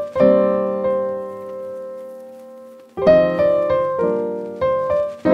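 Background piano music: a few struck notes, then a chord held and fading for about three seconds before the notes pick up again.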